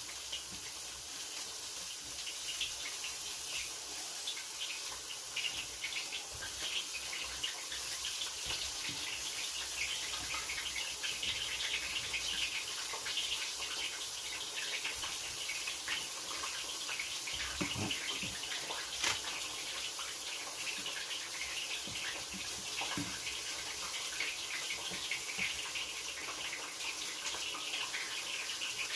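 Battered onion rings deep-frying in hot oil: a steady crackling sizzle full of small pops. A single soft knock about two-thirds of the way through.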